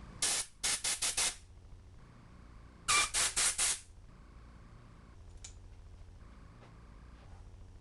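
Two rapid series of short hissing spray bursts, four or five quick squirts each, as carburetor parts are sprayed or blown clean during the rebuild.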